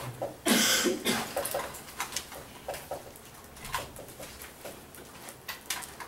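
Dry-erase marker squeaking and scraping on a whiteboard in short, uneven strokes as letters are written. A loud cough comes about half a second in.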